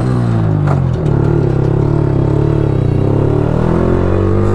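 Yamaha R15 motorcycle's single-cylinder engine running under way, its pitch dipping and rising slightly with the throttle, with a short click a little under a second in.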